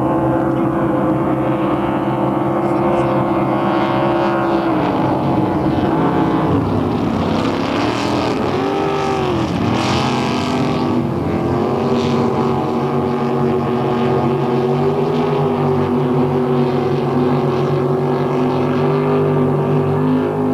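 Racing motorboat engines running steadily, their pitch dipping and climbing several times about six to eleven seconds in before settling back to a steady note.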